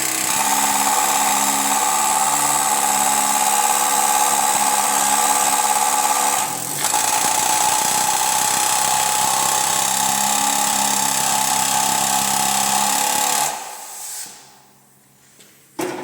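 Electric power tool running at a steady speed with a high whine, dropping out briefly about six and a half seconds in, then switched off and spinning down near the end.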